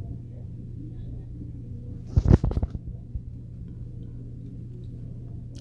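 A steady low hum, with a short burst of rustling noise about two seconds in.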